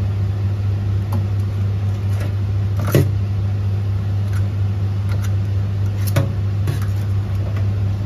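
Steady low machine hum, with a handful of sharp clicks and knocks from crabs and kitchen scissors being handled on a stone countertop, the loudest about three seconds in.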